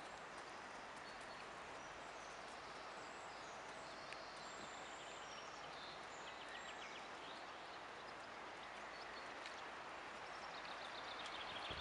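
Faint steady outdoor background hiss with small birds chirping and trilling faintly now and then.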